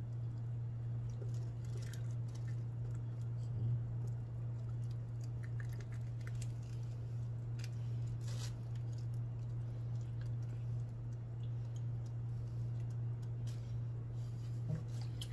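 Raw round scad (galunggong) being gutted by hand: soft wet squishes and small crunches as fingers tear at the gills and belly, with a few sharp clicks, over a steady low hum.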